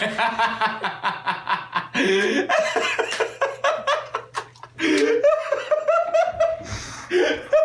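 People laughing hard in rapid, rhythmic bursts, the laughter rising higher in pitch about five seconds in.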